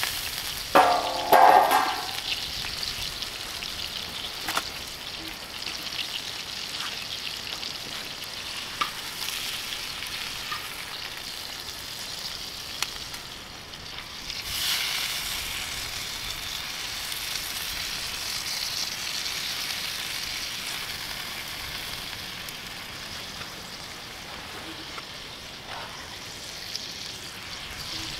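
Pieces of meat sizzling in a large steel pan over a campfire, a steady frying hiss that grows louder about fifteen seconds in as the meat is turned. About a second in there is a loud ringing clang.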